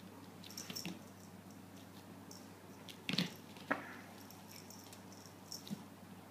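A few soft thumps and rustles of a kitten pouncing on and tussling with a pompom wand toy on a mat, the loudest thump about three seconds in.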